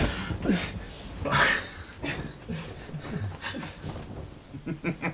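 Two men's breaths and soft chuckles, a few hissy exhales in the first two seconds, then short low voiced sounds and a quick run of chuckling near the end.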